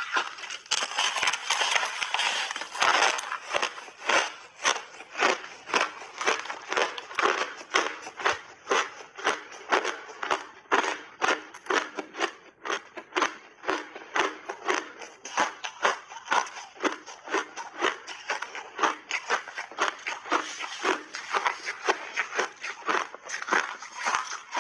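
Teeth biting off and chewing mouthfuls of refrozen crushed ice close to the microphone: a continuous run of crisp crunches, about two or three a second, densest in the first few seconds as a big bite breaks off.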